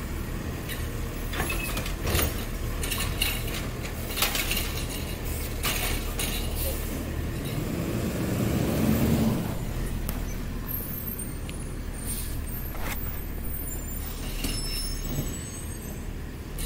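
Garbage truck's engine running a short way off, with scattered clanks and knocks, then a louder rising and falling swell about eight to nine seconds in as the truck moves off down the street.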